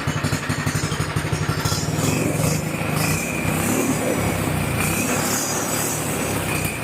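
Predator 212 single-cylinder four-stroke go-kart engine running, at first with a quick regular putter, then revving up about two seconds in and holding a steadier, louder run with a thin high whine over it.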